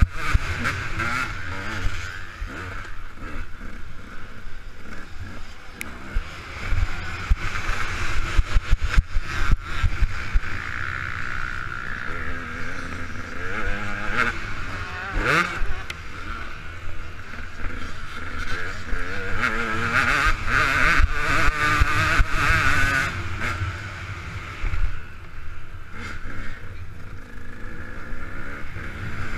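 KTM 200 EXC's two-stroke single-cylinder engine being ridden hard, the revs rising and falling through throttle and gear changes, with wind rumble on the on-board microphone.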